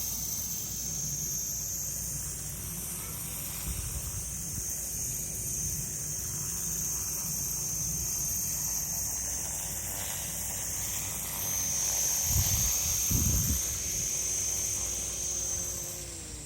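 Solo Pro 287 electric micro RC helicopter hovering: a steady high-pitched motor and rotor whine, with wind buffeting the microphone and gusting louder a little after the middle. Near the end the pitch drops as the motor slows.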